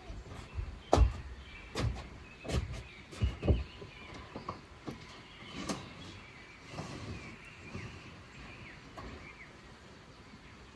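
A series of irregular knocks and thumps, the loudest about a second in, thinning out after about four seconds, with faint high chirps later on.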